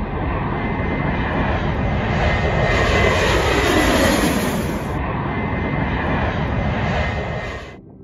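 Twin-engine jet airliner on approach with landing gear down, passing low overhead. The turbofan engine noise, with a high steady whine, swells to its loudest about three to four seconds in, falls in pitch as the aircraft passes over, and cuts off abruptly near the end.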